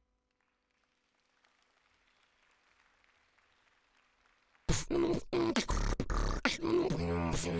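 Near silence for the first four and a half seconds, then beatboxing starts suddenly and loudly: sharp percussive clicks and pops mixed with pitched vocal sounds.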